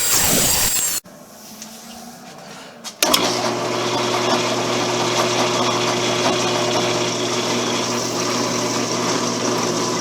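A loud noisy power-tool sound that stops abruptly about a second in, then after a short quieter gap an electric drill's motor starts about three seconds in and runs with a steady hum, ready for drilling through steel latch stock.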